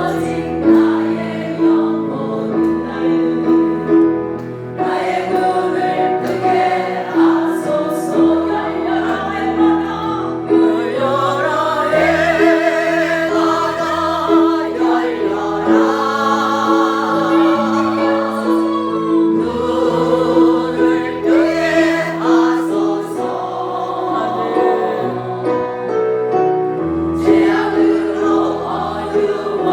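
Christian praise song: singing with a choir-like sound over a steady held note in the accompaniment, with wavering vibrato in the voices around the middle.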